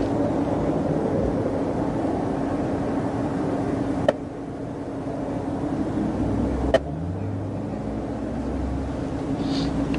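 Steady roar of highway traffic with a constant low hum underneath. Two sharp clicks come about four and about seven seconds in, and a vehicle's low rumble builds in the second half as it comes up the lanes.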